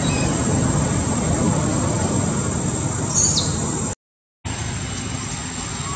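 Steady outdoor background rumble with a constant high-pitched insect drone over it and one short bird chirp about three seconds in. The sound cuts out completely for half a second near the middle, then resumes.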